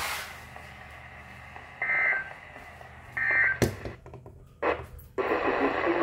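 Weather radio speaker playing two short, harsh two-tone digital bursts about a second apart over faint hiss: NOAA Weather Radio SAME data code. Then two clicks with a brief dropout of the audio between them, after which the radio hiss returns.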